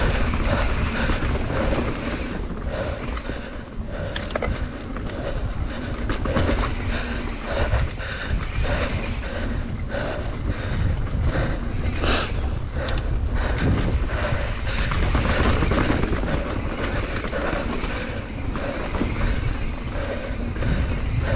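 Mountain bike rolling fast down a dirt singletrack: tyre noise and the bike rattling and clattering over bumps, with many short knocks throughout and wind rumbling on the microphone.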